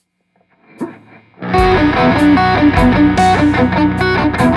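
Electric guitar lead from a 2002 Ernie Ball Music Man JP6 through a Mesa Boogie Mark V amplifier, playing a melodic line of stepping notes over a full backing track with bass and drums. The music comes in about a second and a half in, after a faint swell.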